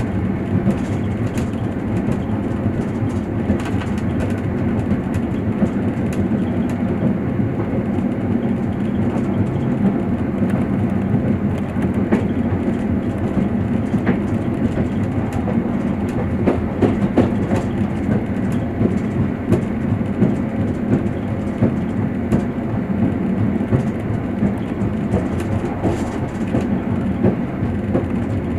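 Passenger train running along the line, heard from inside the carriage: a steady low rumble, with wheels clacking sharply over the rails now and then.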